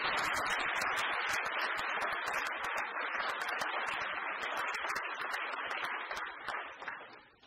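Audience applauding: a dense, steady patter of many hands clapping that dies away near the end.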